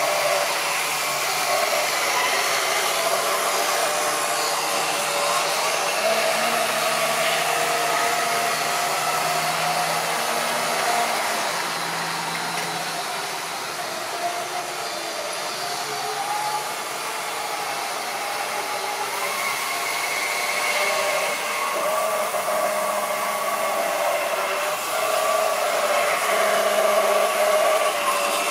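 Model railway train running on the track, its small electric motor whirring steadily with the rolling rattle of its wheels. It grows louder near the end as the train passes close by.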